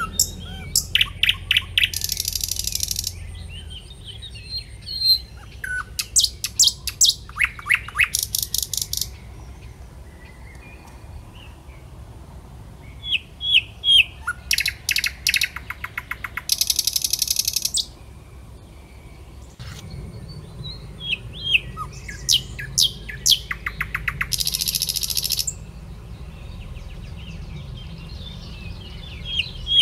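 A songbird singing: repeated phrases of quick, sharp high chirps, each phrase ending in a fast high trill, coming back several times.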